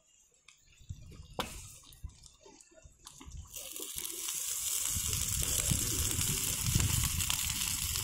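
Thermite (aluminothermic) rail weld going off: a steady rushing hiss with a low rumble underneath, as the crucible's charge reacts and molten steel runs into the mould around the rail joint. It starts about three and a half seconds in after a few faint knocks and rises over about a second to a steady level.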